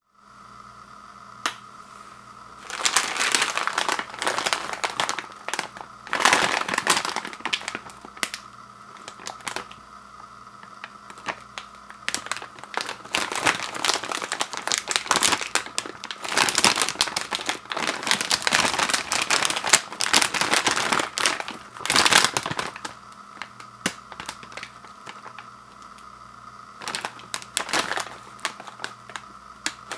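Sealed plastic bag of Takis tortilla chips crinkling as it is picked up and turned over in the hands, in bursts with short pauses between.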